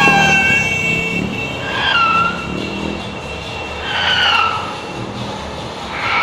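Horn blasts over a low rumble of passing vehicles: a long steady horn note ends about a second in, then short toots with a slight dip in pitch come about every two seconds, three times.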